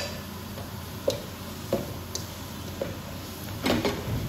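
Cooking sounds in a kadai (wok) as vegetables go in and are moved about: a handful of short, light knocks and clicks, roughly one every second or so, over a steady low hum.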